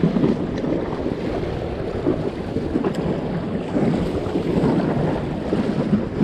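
Wind buffeting the camera microphone in a steady rumbling rush, with choppy lake water washing against a steel seawall underneath.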